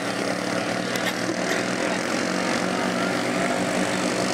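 Several ATV (quad) engines running hard under load as the quads churn through a water-filled mud pit: a steady, unbroken engine drone.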